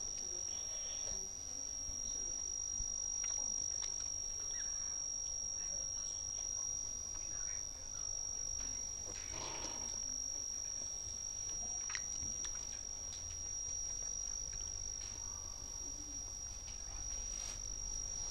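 A steady, unbroken, high-pitched cricket trill, with faint soft chewing and mouth sounds of papaya being eaten close to a lapel microphone.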